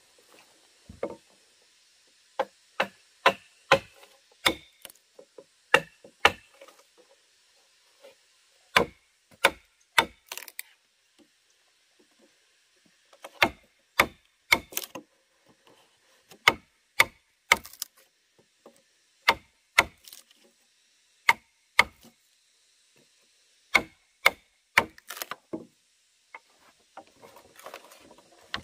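Wooden mallet striking a chisel to cut a notch in a timber beam: sharp knocks in short runs of a few strokes, with pauses between the runs.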